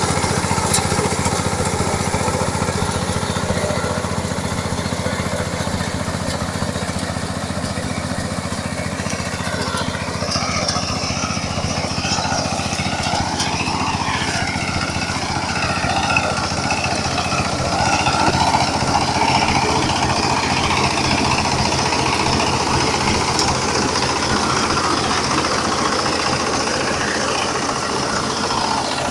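Combine harvester engine running steadily, an even low hum throughout.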